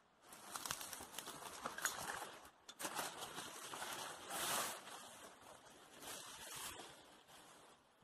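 Leaves and branches rustling and scraping as a bicycle is dragged out of dense undergrowth, in irregular bursts with a few sharp clicks.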